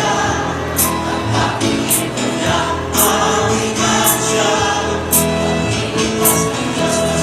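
Music with choral singing: sustained sung chords over a light beat of crisp high percussion hits about once a second.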